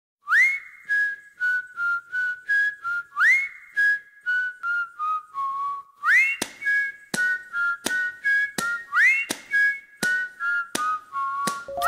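Background music led by a whistled tune. Each phrase opens with an upward slide and repeats about every three seconds. From about halfway, a beat of short sharp strokes comes in under it.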